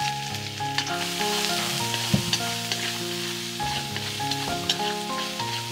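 Garlic and turmeric sizzling in hot rendered snake fat in a pot, with occasional short clicks as they are stirred. Background music with held notes plays under it.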